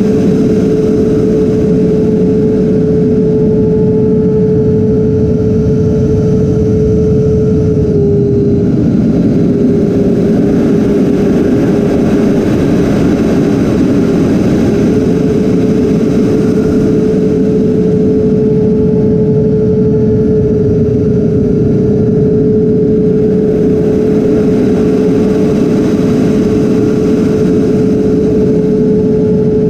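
Twin electric ducted fans of a Freewing A-10 RC jet running in flight, a steady fan whine over the rush of air past the airframe, heard from a camera inside the model's cockpit. The whine dips slightly in pitch about eight seconds in and again around twenty seconds in.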